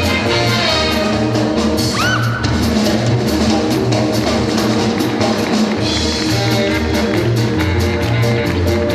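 Lively band music with a drum kit keeping a steady fast beat under sustained instrument notes. A brief gliding, whistle-like tone sounds about two seconds in.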